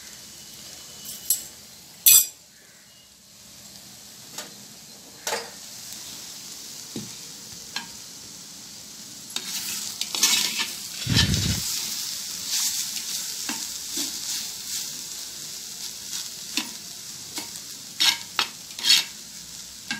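Steel slotted spoon clinking and scraping against a clay pot as the cooked jackfruit poriyal is stirred and turned, with scattered knocks, a sharp clack about two seconds in, and a dull thump around eleven seconds in.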